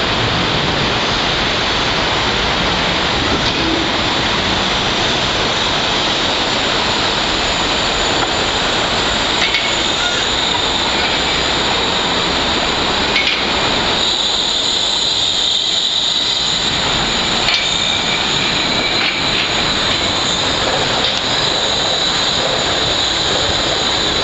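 Wuppertal Schwebebahn suspended train running on its overhead steel rail: a steady, loud rumble of the wheels on the girder track, with a thin high-pitched whine held above it.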